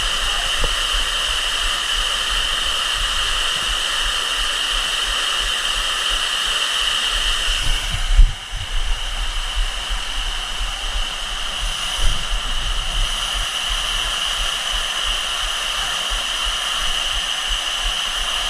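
Steady rushing noise of a waterfall, with low thumps on the microphone about eight seconds in and again around twelve seconds.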